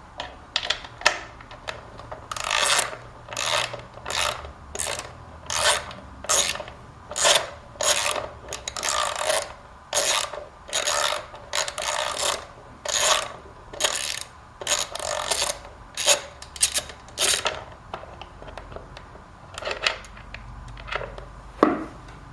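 Socket ratchet wrench making a run of short, rasping strokes, one to two a second, as it backs out a Loctited hollow bolt from the air cleaner backing plate. It stops after about eighteen seconds, and a sharp click comes near the end.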